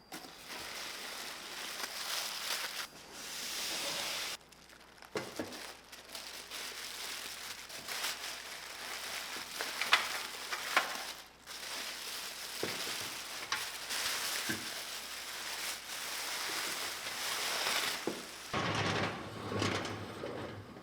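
Scratchy, hissing hand-work noise on the rusted steel toy dump truck, broken by scattered sharp clicks and knocks; the sharpest knocks come about halfway through, and a duller, heavier stretch comes near the end.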